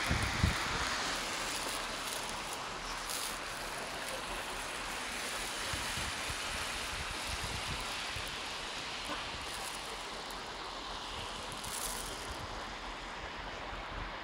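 Steady rushing outdoor noise of wind and traffic, with low gusts of wind buffeting the microphone, strongest near the start.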